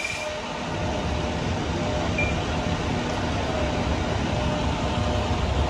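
Steady low rumble of idling vehicle engines and street noise.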